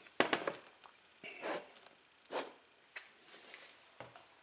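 Soft handling noises: a few light clicks and short brushing rustles, spaced about a second apart.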